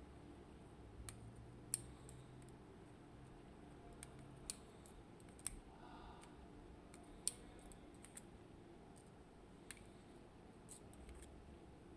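Scattered small, sharp clicks of tiny metal pins and tools: driver pins being taken out of a Mul-T-Lock Integrator dimple lock cylinder as it is disassembled. The clicks come irregularly, about ten in all, with long quiet gaps between them.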